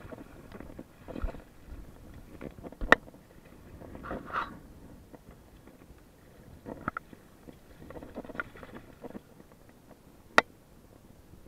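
A freshly landed hiramasa (yellowtail amberjack) thrashing on the kayak: irregular bouts of flapping and scuffing, with two sharp knocks, one about three seconds in and one near the end.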